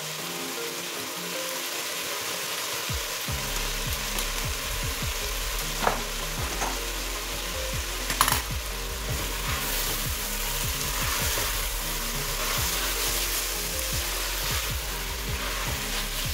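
Chopped carrots, capsicum and spring onions sizzling with a steady hiss as they fry in a stainless steel pot, with a couple of sharp clicks about six and eight seconds in.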